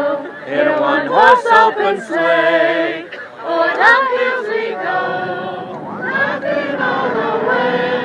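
A group of voices singing together, holding notes, amid a crowd.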